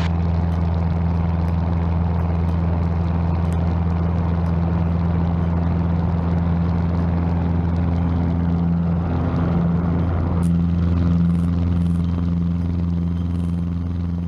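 Cessna 150's four-cylinder engine and propeller running steadily at full takeoff power through rotation and lift-off into the initial climb.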